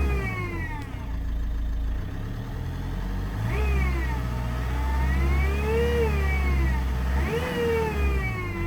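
Ford Mondeo Mk4 2.0 TDCi diesel engine running with a strange whine that glides up and down in pitch in slow arches every second or two, over a low steady engine drone. This is the odd noise the car makes while in limp mode with no fault light showing.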